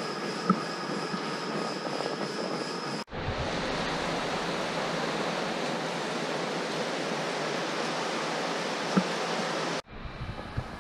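Steady indoor room noise, an even rushing sound with a faint high hum, that changes character abruptly twice, about three seconds in and near the end. A sharp click comes about half a second in, and another about nine seconds in.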